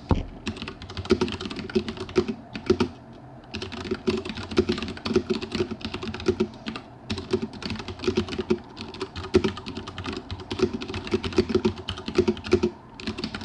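Fast typing on a Filco Majestouch 104 mechanical keyboard with Cherry MX Brown switches: a dense, irregular stream of key clicks and clacks, with a brief pause about three seconds in.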